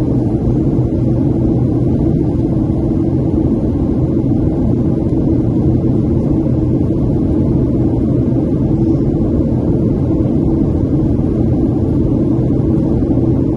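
Boeing 737-700 cabin noise on approach: a steady, low drone of the CFM56-7B jet engines and rushing airflow heard from inside the cabin, with a few steady hums running through it.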